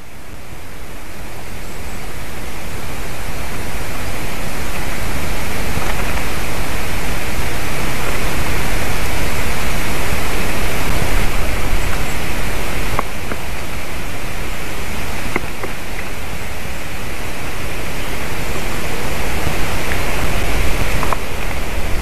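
Loud, steady rushing of wind on an exposed treetop nest-camera microphone, building up over the first several seconds and easing a little about halfway, with a few faint ticks.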